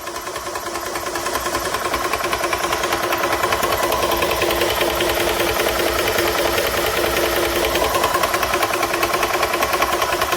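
Small high-pressure PCP air compressor running, its piston pump chugging in a fast, even pulse with a steady whine. It grows a little louder over the first few seconds, then holds steady.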